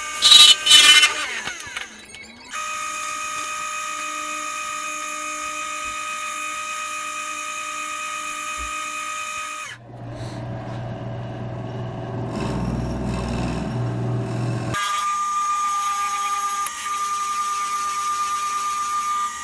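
Wood lathe running with a steady motor whine, a turning tool scraping the spinning wood in the first second. About ten seconds in the sound switches abruptly to a lower, rougher hum, and the steady whine returns about five seconds later.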